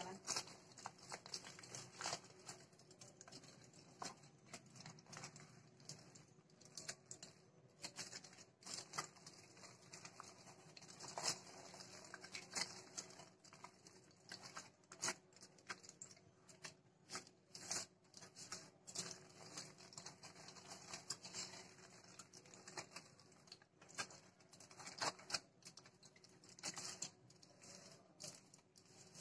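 Aluminium foil crinkling faintly and unevenly with sharp little crackles as it is pressed and rolled tightly by hand.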